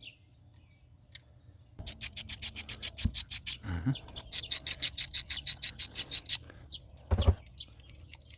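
Ratchet wrench clicking in two runs of quick, even clicks, about six a second, as a bolt is backed out, with a couple of knocks between and after.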